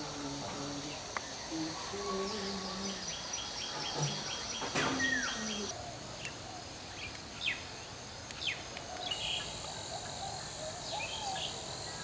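Wetland ambience: a steady high insect whine, with a rapid run of ticking chirps in the middle, and scattered short bird calls, several of them sharp downward-sliding notes.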